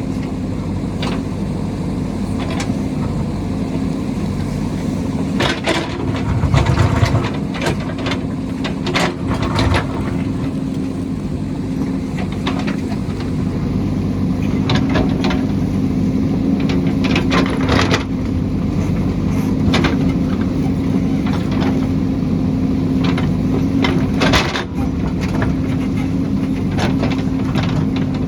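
JCB backhoe loader's diesel engine running steadily while working, with frequent sharp knocks and clanks over it.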